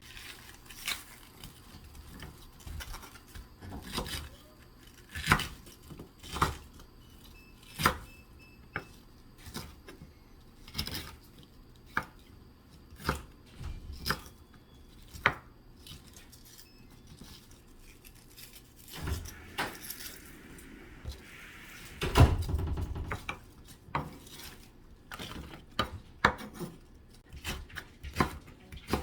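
Utensils knocking against dishes in a kitchen: sharp separate clinks about once a second, with a louder clatter a little after two-thirds of the way through.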